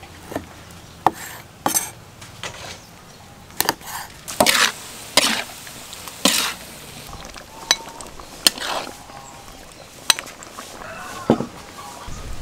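Cooking sounds: a knife chopping on a wooden board and a spatula stirring and clattering in a wok. These come as about a dozen irregular sharp knocks and scrapes.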